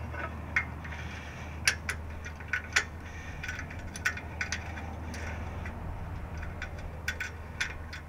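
Scattered sharp metallic clicks and small taps of a steel bolt being fitted by hand against a sway-bar bracket, as it is worked to start in its thread, over a steady low hum.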